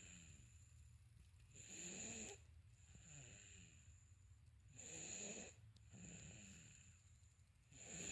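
Faint snoring of a sleeping person: a rasping snore about every three seconds, each followed by a softer breath.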